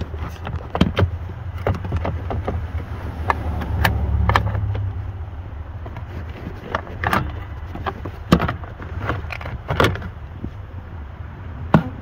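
Hard plastic dash trim panels being handled and pulled off in a truck cab: scattered sharp clicks and knocks of clips and panels, over a steady low rumble that swells a few seconds in.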